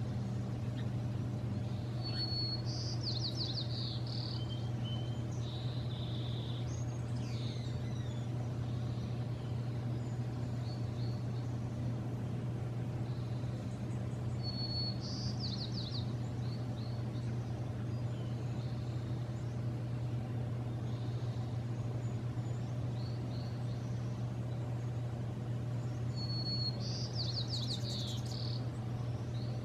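A songbird singing the same short high song three times, about twelve seconds apart: a brief held note followed by a quick run of notes. Under it runs a steady low hum.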